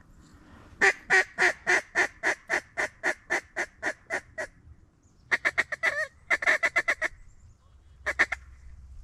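Mallard duck call blown loudly: a long series of about fourteen hen quacks that fade as they go (a hail call), then two quick runs of short feeding-style notes and a brief burst of three near the end.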